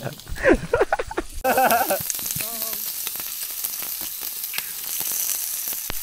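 Strips of cured pork and eggs sizzling on a barbecue hotplate: a steady crackling hiss that starts about a second and a half in, with a few voices over its start.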